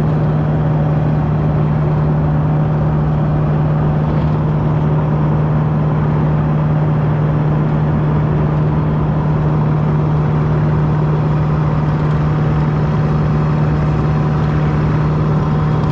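Kubota mini excavator's diesel engine running steadily above idle as the machine tracks forward, one even hum that does not change in pitch.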